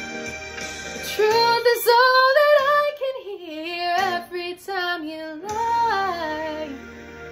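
A woman singing wordless "ooh" vocal runs, her pitch bending and wavering through several phrases, over a soft backing track of held chords. Her voice stops near the end, leaving the accompaniment sustaining on its own.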